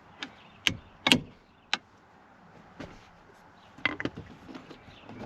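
Sharp knocks, irregularly spaced, as the old hinge pin is tapped out of the door hinge on a 1996 Ford F-250, with a quick cluster of three strikes about four seconds in.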